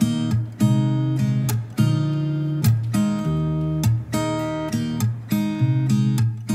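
Background music: an acoustic guitar strumming chords, each chord struck afresh every half second to second.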